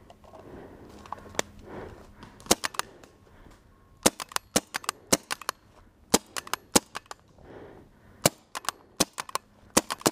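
Paintball markers firing: more than a dozen sharp pops in quick runs of two or three a second, starting a couple of seconds in.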